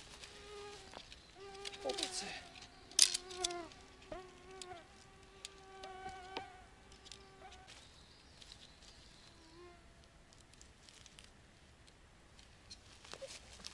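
A flying insect buzzing close by, its whine wavering and bending in pitch as it moves around, fading out about halfway through. A few light clicks and rustles of tent parts being handled are heard with it.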